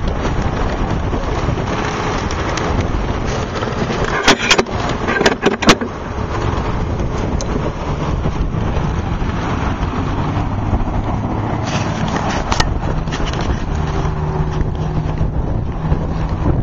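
Steady outdoor rumble of road traffic, with a few sharp knocks about four to six seconds in and a low, even engine hum in the second half.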